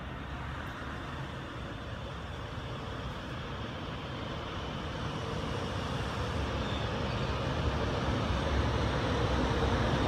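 DB Class 111 electric locomotive hauling a passenger train as it approaches, a steady rumble of wheels on rail that grows gradually louder. A faint steady hum comes up in the second half.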